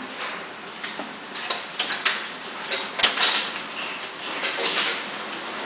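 Heavy rain falling in a thunderstorm: a steady hiss of rain with irregular sharp taps of drops striking the window and nearby surfaces.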